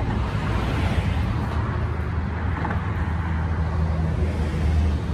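A steady low engine drone, with a noisy outdoor hiss over it.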